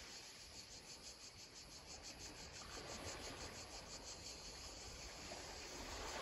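Faint, high-pitched insect chirring that pulses rapidly, several pulses a second, over a soft background hiss.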